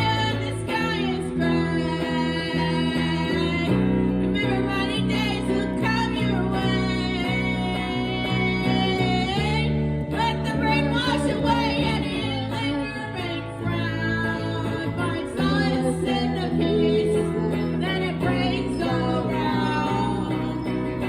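Live blues song on guitar with a woman singing a long, bending melody over steady chords.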